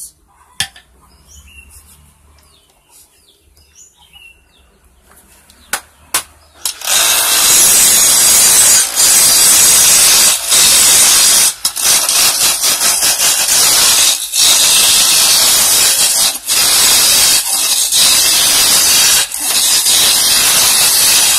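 A few sharp knocks, then, about seven seconds in, a loud steady hiss of a turning tool cutting a wooden hammer handle spinning on a manual wood lathe. The hiss breaks off briefly several times as the tool is lifted from the wood.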